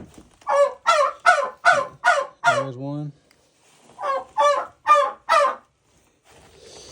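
Hens squawking loudly in a fast run of calls, about three a second, in two bouts with a short pause between them. The birds are agitated at being disturbed on their nests.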